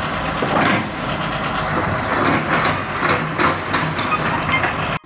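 Diesel engines of heavy machinery, excavators and a crane, running at idle as a steady low din, with uneven louder noise over it through the middle.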